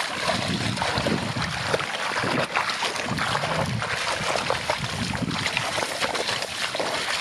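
Shallow muddy water sloshing and splashing without pause, with many small splashes and drips.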